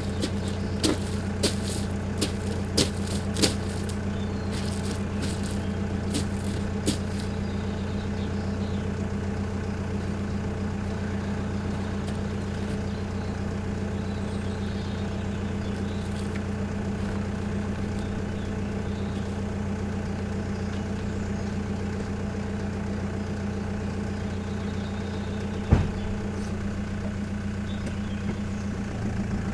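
Truck engine idling steadily, with a series of sharp clicks in the first several seconds and a single knock near the end.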